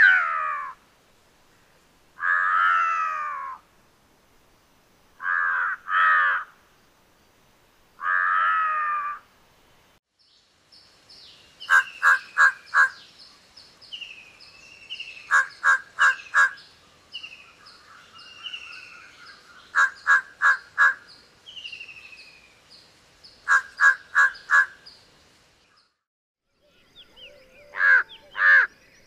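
Large-billed crow calling with hoarse caws: first several long, drawn-out caws a couple of seconds apart. From about ten seconds in come quick runs of three or four short caws, with small birds chirping in the background.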